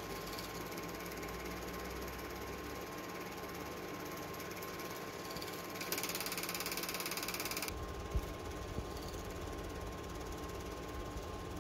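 Steady mechanical clatter and hum, typical of a home-movie film projector running, with a faint steady whine. A brighter hiss joins in about six seconds in and stops under two seconds later, and there is a single knock just after.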